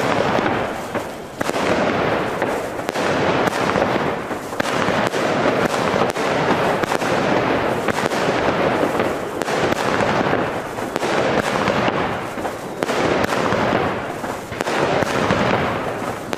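Argento Fireworks 'Veronica' 13-shot 30 mm cake firing shot after shot. The stars break into dense, continuous crackling that swells with each shot.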